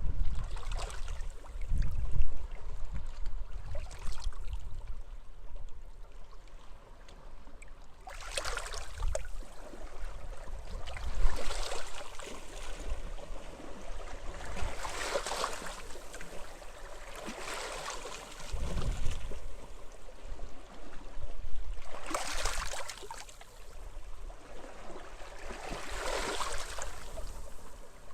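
Small sea waves washing and hissing onto a beach, one wash every three to four seconds, with low rumbling gusts of wind.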